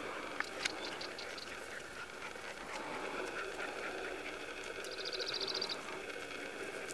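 Outdoor ambience in dry scrub: steady rustling and footfall noise of dogs and the person filming pushing through brush, with a few sharp clicks in the first second and a short rapid high trill about five seconds in.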